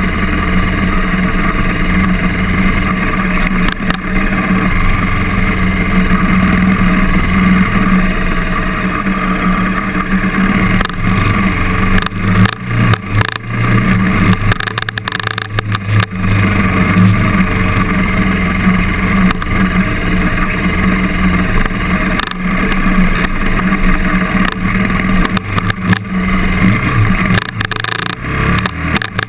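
KTM trail bike's engine running under load, heard close from a camera mounted on the bike, its pitch shifting as the throttle opens and closes. Thumps and knocks break in around the middle and again near the end.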